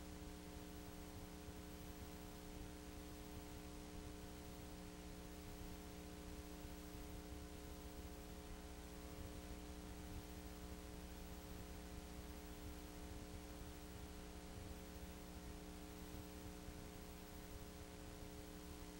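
Faint, steady electrical hum under a low hiss, unchanging throughout; no motorcycle engines can be heard.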